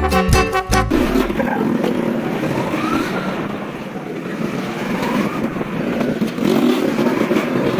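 Music cuts out about a second in, then a motorcycle runs along the street with steady engine and road noise. Its note rises briefly a couple of times.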